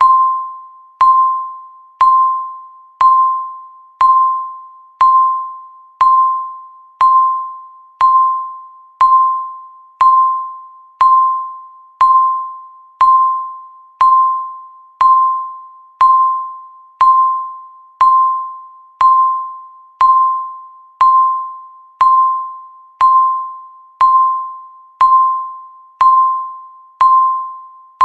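Electronic countdown-timer beep: one mid-pitched tone struck every second, each starting sharply and fading away before the next, marking off each second of the countdown.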